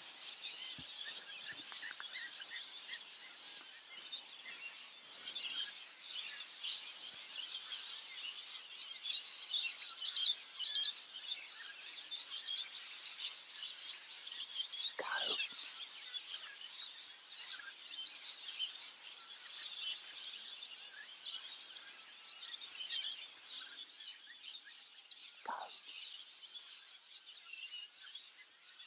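Many birds chirping and calling together in a continuous chorus. A brief deeper sound cuts through twice, about ten seconds apart.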